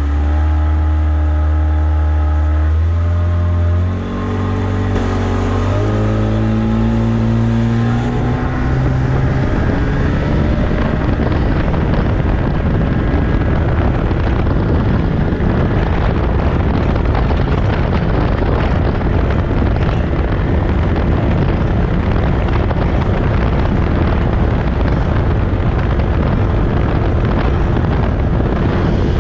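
Addictor 190 mini boat's Tohatsu 30 outboard opening up, its pitch rising in several steps over the first eight seconds or so, with a brief dip about four seconds in. After that it runs at speed, largely covered by a dense rush of wind and water.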